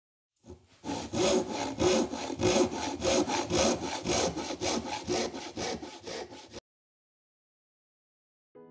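Hand saw cutting through wood in quick, even back-and-forth strokes, about three a second, stopping abruptly.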